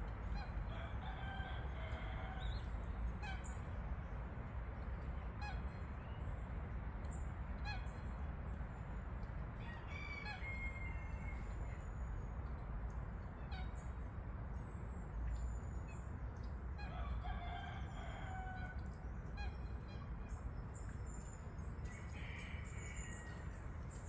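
Birds calling: a few drawn-out, pitched calls near the start, about two-thirds of the way in and again near the end, with short chirps and scattered clicks in between, over a steady low rumble.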